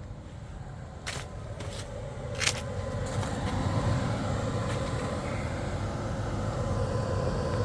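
12V under-bunk air conditioner running on high, heard from outside the van at its vents: a steady fan rush and compressor hum that grows louder over the first few seconds. A few sharp knocks come about one and two and a half seconds in.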